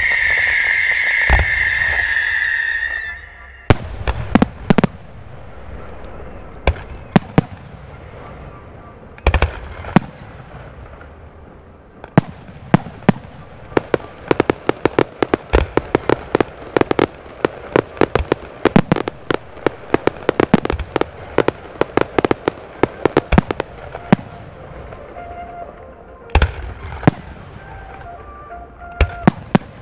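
Aerial fireworks shells bursting overhead: a loud, high, steady whistle-like tone for about three seconds, then a run of sharp bangs that builds into a rapid volley of many reports a second through the middle and thins to scattered bangs near the end.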